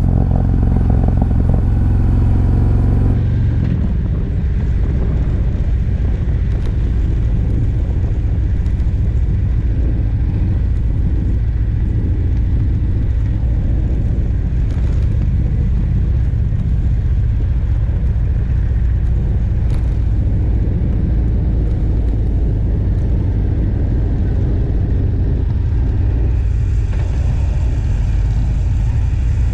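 Harley-Davidson Road Glide's V-twin engine running steadily while riding downhill, mixed with a steady rush of wind noise. The sound changes character about three seconds in.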